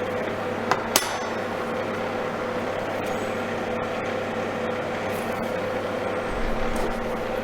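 Inline duct fan running steadily, blowing air through a 125 mm duct and out through a flat magnetic vent grille, a steady hum with no whistling. About a second in, a soft click and then a sharp metal click with a short ring as the magnetic grille is fitted.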